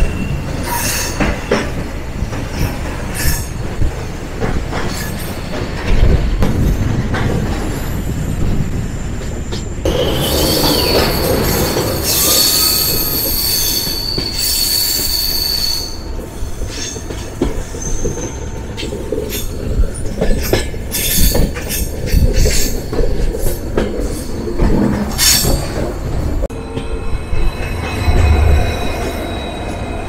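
Passenger train running on a winding mountain line, wheels squealing on the curves in high steady tones over the rumble and clatter of the wheels on the rails. A deeper rumble comes in near the end.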